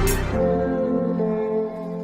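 Pop song's backing music: about a third of a second in, the drums and bass drop out, leaving a few held chord notes that fade toward the end.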